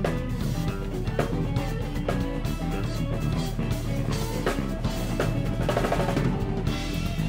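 Background music with a drum kit keeping a steady beat over pitched instruments.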